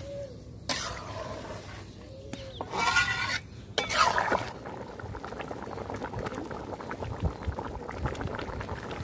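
Thick chicken curry bubbling in a large metal karahi, with a metal spatula stirring and scraping the pan. The sound comes in a few short stretches that break off abruptly in the first half, then settles into a steady bubbling full of small pops.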